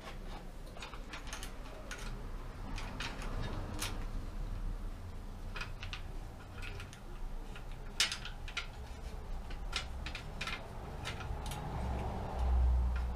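Irregular clicks and taps of hand work on a bicycle's rear wheel in a repair stand, with a sharper click about eight seconds in and a low rumble near the end.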